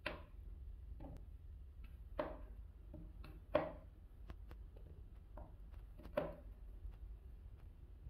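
Chef's knife cutting through a fresh apple and knocking down onto a cutting board: four firmer knocks, with lighter ticks and clicks of the blade between them, over a low steady hum.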